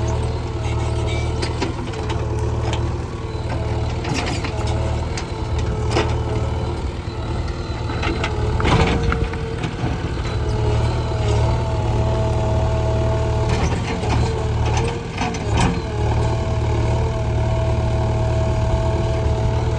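JCB 3DX backhoe loader's diesel engine running under working load, with a steady whine over its low hum that sags twice as the load changes. Scattered metallic clanks and scrapes of the bucket working through stony ground cut across it; one of the loudest comes a little before halfway.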